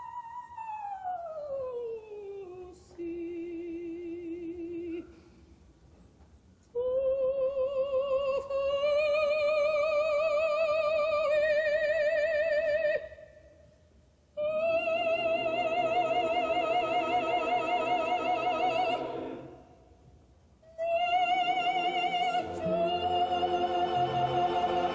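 Operatic soprano singing with a wide vibrato. A long phrase falls onto a held low note, then three sustained phrases follow, broken by short pauses. Near the end a lower accompaniment comes in beneath the voice.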